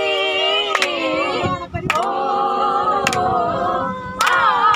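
Several voices singing together in long held notes, with a sharp regular beat about once a second.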